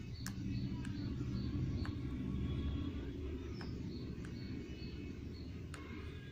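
Small birds chirping now and then over a loud low rumble that swells in the first few seconds and then slowly fades, with a few faint clicks.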